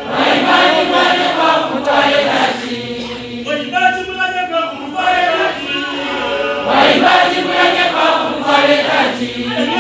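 A group of voices singing together in chorus, with some notes held.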